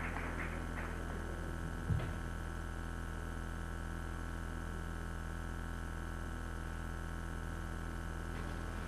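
Steady hum with no voice or music, a few scattered claps in the first second, and a single thump about two seconds in.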